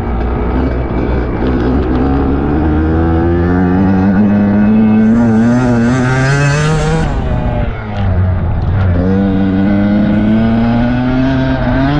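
Dirt bike engine revving hard under acceleration, its pitch climbing steadily for several seconds with a rush of hiss near the top. About eight seconds in it drops off briefly, then climbs again.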